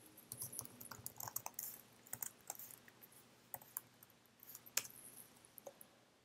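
Computer keyboard being typed on: faint, irregular keystrokes in short runs, with one sharper key click a little after halfway.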